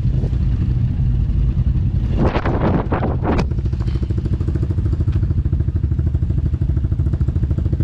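Off-road vehicle engine running steadily at low speed. About two seconds in there is a brief rough, clattering flurry, and after that the engine settles into an even, fast pulsing.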